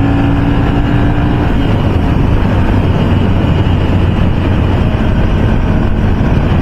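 Ducati V-twin motorcycle cruising steadily at highway speed, its engine running under a heavy rush of wind on the microphone. A higher tone from another vehicle fades out about a second and a half in.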